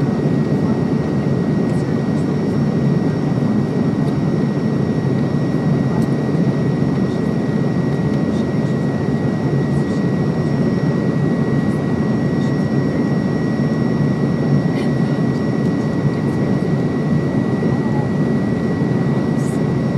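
Steady jet airliner noise heard from inside the cabin during the landing approach: an even rumble of engines and rushing air, with a thin steady whine above it and a few faint ticks.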